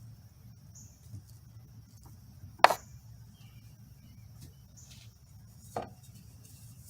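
Two sharp knocks or clicks, the louder about two and a half seconds in and a softer one near the end, over a low steady hum.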